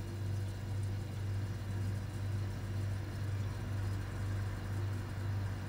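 Room tone: a steady low hum under faint, even background noise.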